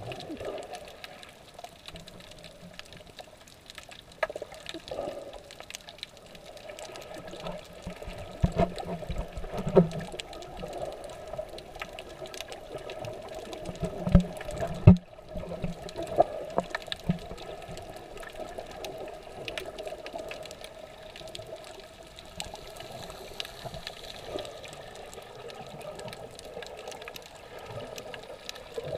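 Muffled underwater water noise, a steady sloshing and bubbling picked up through a waterproof camera housing. A few dull knocks and splashes come around the middle, the loudest about halfway through.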